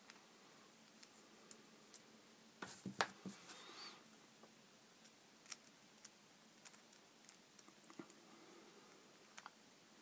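Faint, scattered small clicks and ticks of a small Torx driver and the parts of a Spyderco Dragonfly 2 folding knife being handled as its screws are refitted, with a short cluster of clicks about three seconds in.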